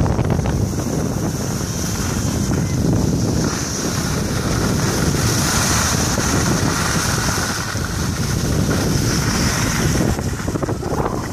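Wind buffeting the microphone as it moves downhill on skis, over a steady hiss of skis sliding on packed snow.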